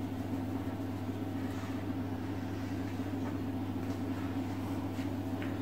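Steady low hum with no change in pitch or level, and a couple of faint ticks near the end.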